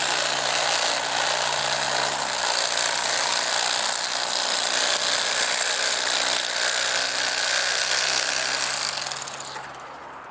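Battery-powered electric fillet knife running steadily as its reciprocating blades cut through a fish, with a high-pitched buzzing hum; the motor stops shortly before the end.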